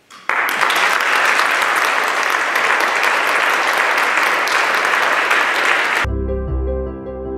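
Audience applauding, starting just after the start and cut off abruptly after about six seconds. Then calm instrumental music with sustained keyboard-like notes begins.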